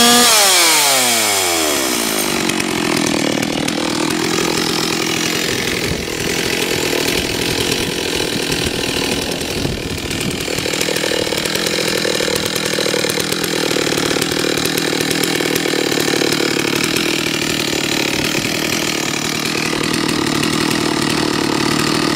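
Stihl 064 AV two-stroke chainsaw engine dropping from high revs back to idle in the first couple of seconds, then idling steadily.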